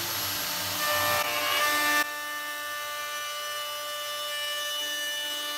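Half-horsepower handheld router running and cutting along the edge of an aluminum plate, with the bit set too deep. The cut is louder and rougher for about the first two seconds, then the router settles into a steady high-pitched whine.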